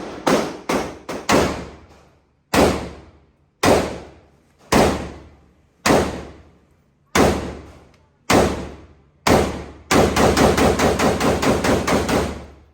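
Gunshots at a shooting range, each ringing out for about a second: a quick run of about five shots at the start, then single shots about one a second, then a fast string of many shots lasting about two seconds near the end.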